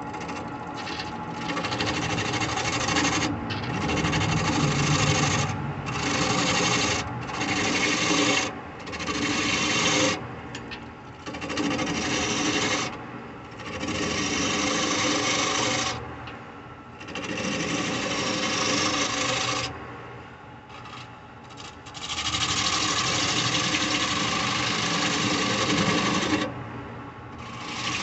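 Gouge cutting the tenon off the bottom of a spalted birch bowl spinning on a wood lathe: a series of cuts, each a second or a few seconds long with short breaks between, over the steady run of the lathe. The longest cut, about four seconds, comes shortly before the end.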